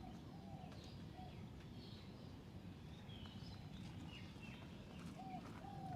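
Faint, scattered short chirps of small birds over a low, steady background noise.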